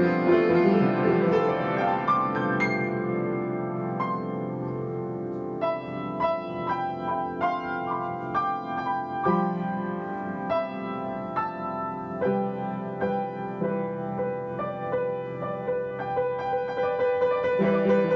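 Piano music: slow held chords, then a steadier run of single notes, several a second, from about six seconds in.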